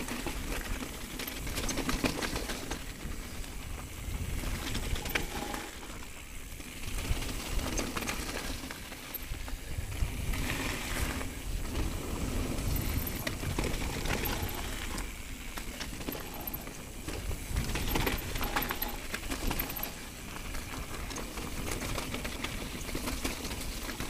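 Mountain bike riding fast down a rocky gravel trail: tyres crunching over loose stones, with irregular knocks and rattles from the bike, and wind buffeting the chin-mounted camera's microphone as a low rumble.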